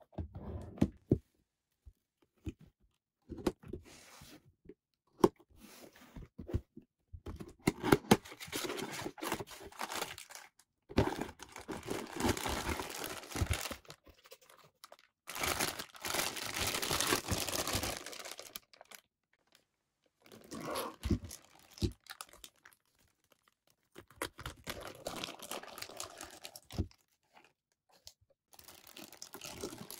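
Clear plastic packaging bags crinkling and rustling in bursts with short pauses as figure parts are handled and pulled out of them, after a few sharp knocks of a cardboard box being handled at first.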